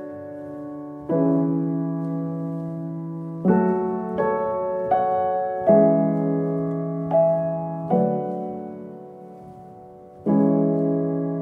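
Background music: slow solo piano, chords struck every second or two and left to ring and fade.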